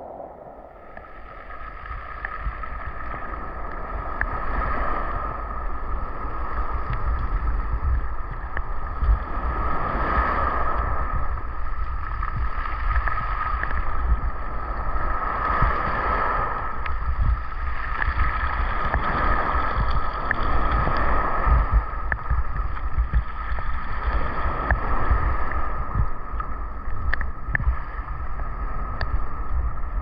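Sea water lapping and sloshing around a camera held right at the surface, muffled with a heavy rumble, swelling and easing every few seconds with the small waves. A steady high tone runs underneath throughout.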